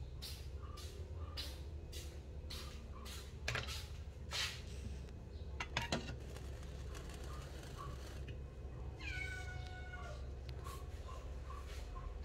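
Puppy whining: one drawn-out cry about nine seconds in that falls in pitch. Before it, soft swishing sounds come about twice a second, with a few knocks.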